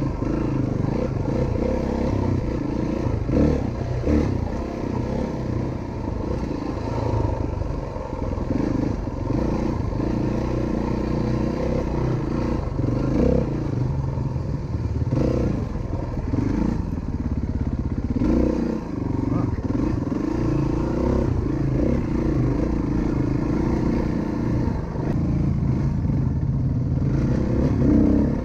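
Single-cylinder four-stroke enduro motorcycle engine running on a trail ride, its revs rising and falling constantly with the throttle, with some clattering over rough ground.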